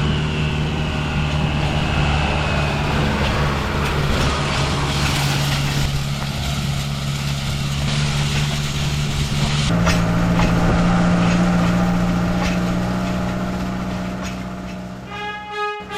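Farm tractor engine running steadily, its note stepping up suddenly to a higher speed about ten seconds in.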